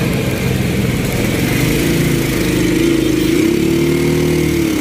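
Small motorcycle engine of a moving Philippine tricycle running under way, its note climbing about two seconds in and dropping again near the end, over a steady rush of wind and road noise.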